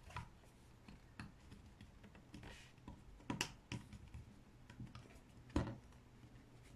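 Plastic battery back cover of a portable radio being worked back into place by hand: scattered light clicks and scrapes, with sharper clicks about three and a half and five and a half seconds in.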